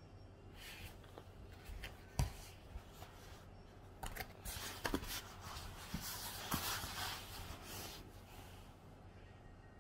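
Handling noise and rustling as a person shifts her body and presses her inner thigh onto a foam roller, clothing and skin rubbing against it. A few sharp knocks stand out, the loudest about two seconds in and another near five seconds, with the rustling densest in the second half.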